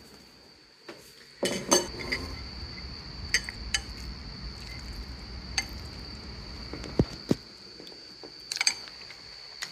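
Chopsticks and a metal fork clinking and knocking against a ceramic bowl of rice, a dozen or so scattered clinks with the loudest about a second and a half in. A steady high whine runs under them.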